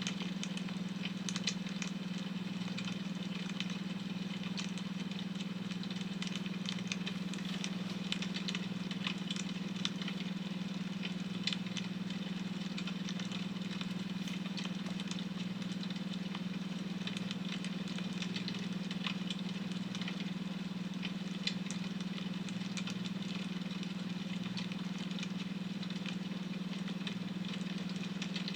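Wood fire crackling, with irregular small pops and snaps, over a steady low drone from a beta-wave study tone.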